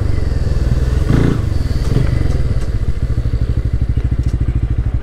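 Bajaj Pulsar N160's single-cylinder engine running as the bike slows down. In the last couple of seconds it settles into a steady, even idle beat.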